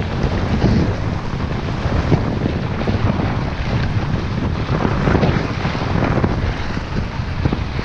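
Wind buffeting a body-worn camera's microphone during a fast downhill ski run, with the skis hissing and scraping over the snow in repeated surges.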